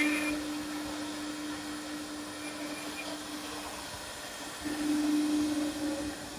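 Woodworking CNC drilling and milling machine running, its spindles giving a steady whine over a noise of air and machinery. The whine dips in the middle and swells louder again about five seconds in.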